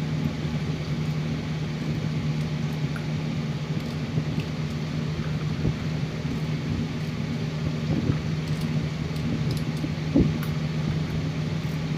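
A steady low hum with a few faint clicks and taps of a kitchen knife cutting pointed gourd (parwal) by hand over a steel bowl; the clearest tap comes about ten seconds in.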